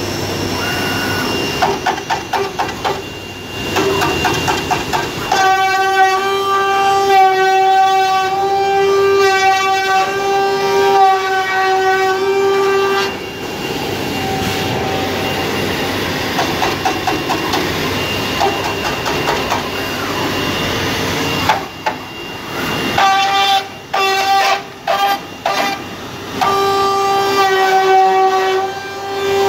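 CNC 5-axis carving and sawing machine's spindle cutting a plastic suitcase shell: a loud, high, steady-pitched whine while the cutter is in the material, from about five seconds in to about thirteen, and again in broken stretches near the end. Between these cuts the spindle runs with a rougher hiss.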